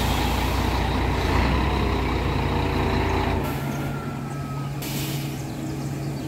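Scania truck's diesel engine idling, a steady low drone whose deepest rumble drops away about three and a half seconds in. A brief hiss comes near five seconds.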